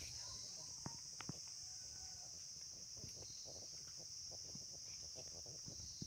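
A steady, high-pitched insect drone runs throughout, with two sharp clicks about a second in and faint low scuffing and rustling underneath.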